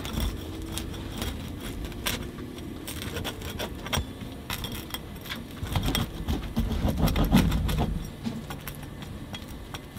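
Rolling pizza wheel cutting through a pizza's crisp, crunchy crust on a wooden peel, giving a run of small crackling clicks. A low rumble swells in the background a little past the middle.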